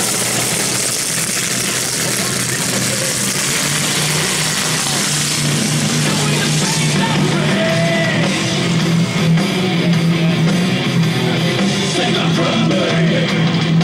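Rock music with electric guitar playing loudly, over a steady rushing noise that drops away about seven seconds in.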